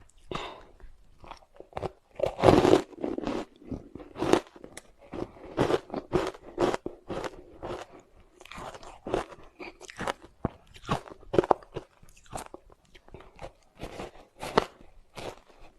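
Soft ice dusted with matcha powder being bitten and chewed close to the microphone: a quick run of crisp crunches and crackles, the loudest about two and a half seconds in.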